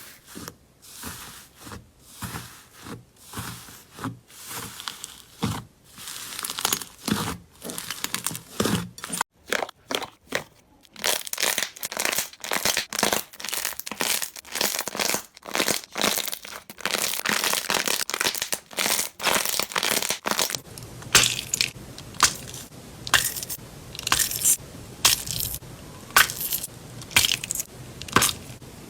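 Slime being squeezed and pressed by hand: a quick run of short, crisp pops and crackles, packed closer together and louder from about a third of the way in.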